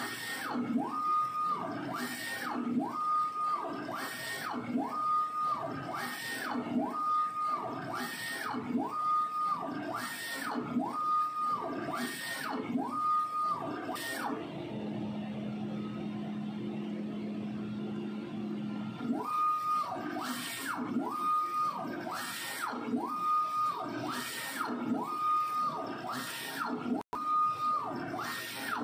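A3 UV DTF printer's print carriage shuttling back and forth at about one pass a second. Each pass is a motor whine that rises, holds steady and falls away. The passes stop for about four seconds in the middle, leaving a steady low hum, then resume.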